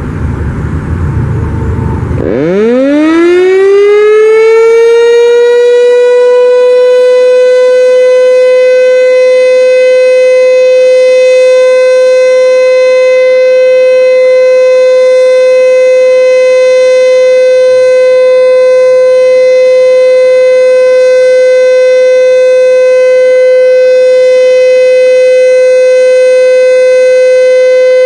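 American Signal Corporation T121 outdoor warning siren winding up on a test: a low rush of noise at the start, then a rising wail that climbs over a few seconds and settles into one loud, steady, unbroken tone.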